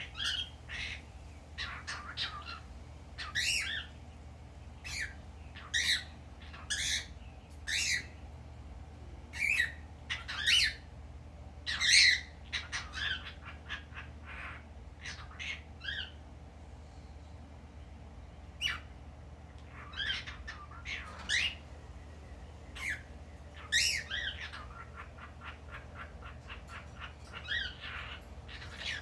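Male cockatiel chattering in a long run of short squawks and chirps, with a quick run of rapid chirps near the end.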